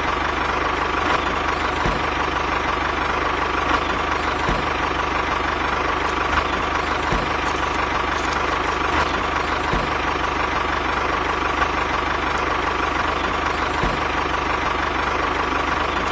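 An engine running steadily at idle: an even, unbroken drone with a constant thin whine, and a few faint knocks.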